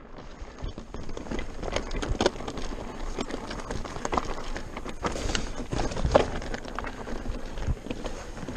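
Pivot Mach 429 Trail mountain bike rolling fast down a rocky trail: tyres crunching over loose stones with a constant run of rattles and knocks from the bike over the bumps, under a steady hiss of rolling and wind noise.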